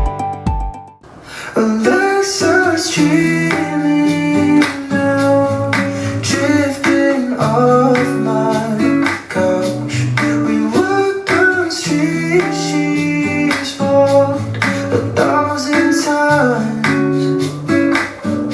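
A pop song with plucked guitar and singing played through the Pioneer HTZ-272DVD home theater speakers and subwoofer as a sound test; the music dips at the start and comes back in about a second in.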